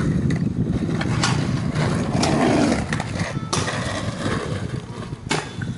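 Stunt scooter's wheels rumbling over asphalt, with sharp clacks, about three of them, as the scooter strikes the concrete ledge.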